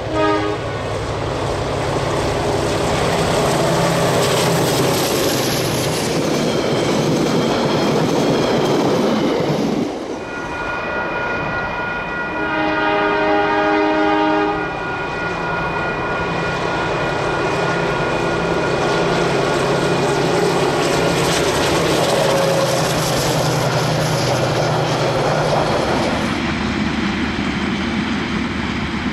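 DJ class diesel-electric locomotive running at speed with its passenger train, engine and wheels on the rails making a steady rumble as it passes. About halfway through, the locomotive's horn sounds one blast of about two seconds.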